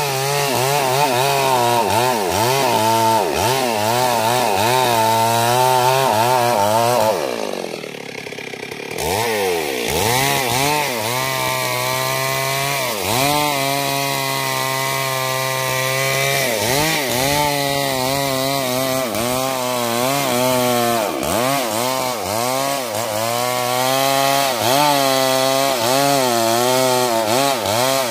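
Stihl MS 382 two-stroke chainsaw cutting into a sengon trunk at high revs, its pitch wavering as the chain loads up in the wood. About seven seconds in the revs fall off for a couple of seconds, then climb back up into the cut.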